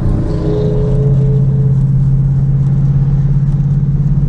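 A car's engine and exhaust drone at a steady pitch, cruising at constant speed.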